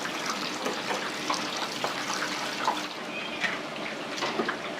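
Restaurant kitchen noise: a steady rushing hiss, from running water or food frying, with scattered clinks and knocks of utensils.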